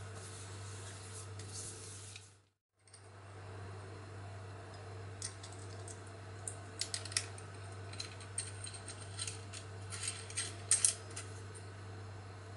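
Light metallic clicks and scrapes of a small high-speed steel saw blade, washer and screw being handled and fitted onto a rotary-tool mandrel. The clicks come scattered from about five seconds in, the sharpest near the end, over a steady low hum. The sound cuts out briefly about two seconds in.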